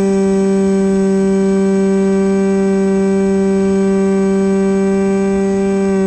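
Brushless RS2205 2300kv motor and propeller of an FPV plane in flight, picked up by the onboard camera: a steady whine held at one pitch.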